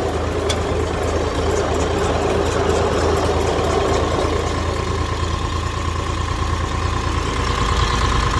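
Tractor engine running steadily in first gear while the IBEX mini hay baler it pulls works behind it, a constant mechanical din. A steady whine comes in about halfway through.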